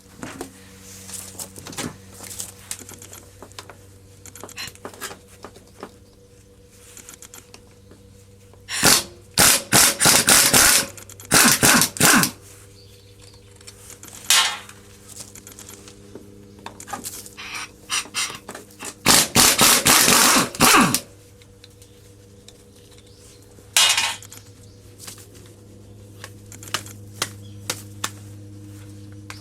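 Metal tool work on tractor front-axle parts: scattered clinks and scrapes, then twice a loud burst of rapid metallic striking lasting two to three seconds, over a faint steady hum.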